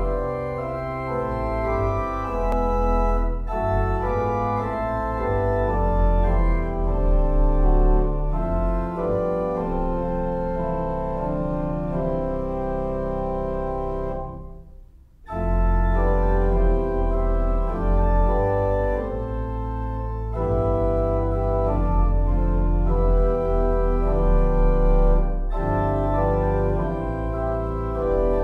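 Organ playing slow sustained chords over a low pedal bass, with a short break about halfway through.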